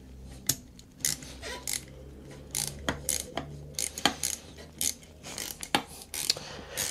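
Small hand ratchet clicking in short, irregular strokes as a Torx bit backs out the corroded screw holding a TPMS tyre pressure sensor to its valve, with metal tool scrapes and a low steady hum beneath.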